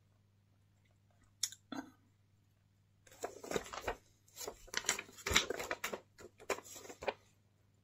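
Paper rustling and crinkling as a folded instruction leaflet is handled and folded up, after two light clicks about a second and a half in.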